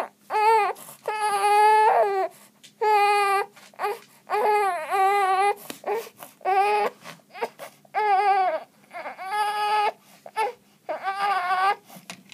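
Infant crying face down on a play mat: a string of short, steady-pitched wails, about one a second, with brief breaks between them.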